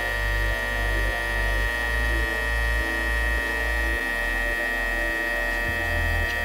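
A steady electric hum with a high whine held on one pitch, under a low bass line that changes note about twice a second.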